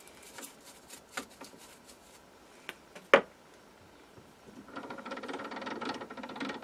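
Hand work at a stopped lathe's three-jaw chuck: light metal clicks, one sharp clack a little after three seconds, then a fast, fine ticking rattle over the last two seconds or so.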